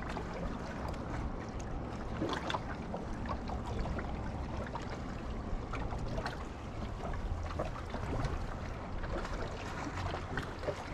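Water lapping and trickling against a small boat's hull, with scattered light clicks and knocks throughout.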